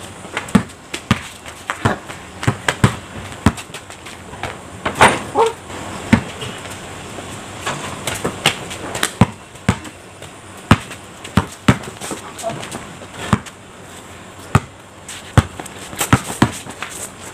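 Basketball being dribbled and bounced on a concrete driveway during play: sharp, irregular thuds, about two a second.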